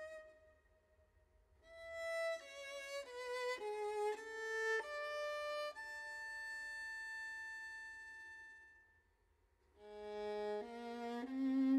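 Slow solo violin melody as background music: a falling run of notes, a long held note that fades away, then a rising phrase near the end.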